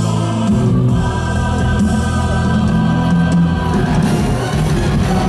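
Music with choir-like sung voices holding long notes.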